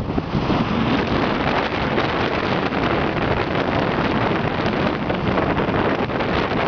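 Steady wind buffeting the microphone of a camera carried on a Bixler foam RC plane in flight, a loud, even rush with no clear tone.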